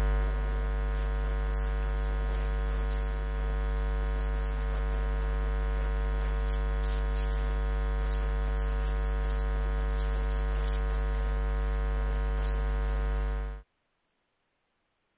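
Loud, steady electrical hum in the recording, a low buzz with a dense stack of overtones and no speech over it. It cuts off suddenly near the end, leaving near silence.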